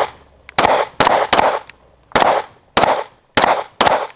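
Rapid string of 9mm handgun shots, about seven sharp reports fired roughly half a second apart with some quicker pairs, each followed by a short echo: a timed drill string fired after a shot-timer start.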